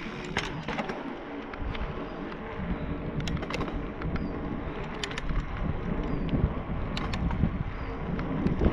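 Mountain bike rolling down an asphalt road: steady wind buffeting on the microphone and tyre rumble, broken by a few sharp clicks and rattles from the bike.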